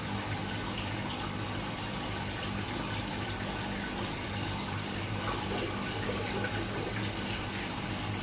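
Aquarium water bubbling and running steadily from the tank's aeration and filter, over a steady low hum from the pump.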